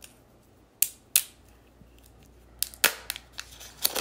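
Sharp plastic clicks and snaps as the protective plastic film is pulled off a new Apple Pencil stylus: two single clicks about a second in, then a quick cluster of them near the end.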